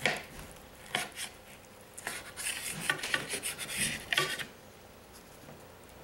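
Steak knife sawing through a seared sirloin steak and scraping on a ceramic plate, with knife and fork clinking. There is a clink at the start and another about a second in, then a run of quick rasping sawing strokes for about two and a half seconds.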